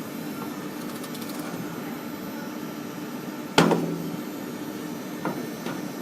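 Steady hum of factory production-line machinery, with one sharp knock that rings briefly about halfway through and two lighter clicks near the end.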